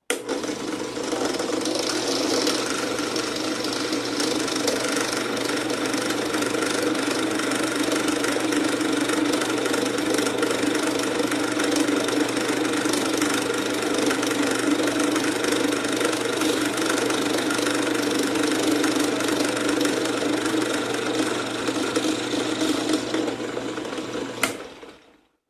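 Drill press running at about 1450 RPM, its ball-nose router bit cutting a slot in pine, with a steady machine whine and cutting noise. The sound falls away near the end.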